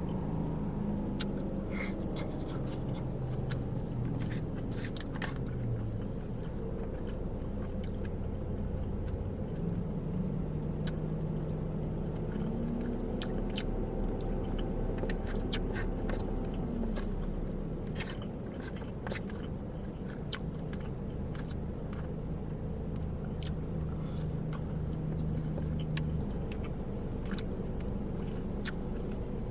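Close-miked chewing and crunching of fried Chinese takeout food, with many short wet clicks and crunches, over a steady low hum.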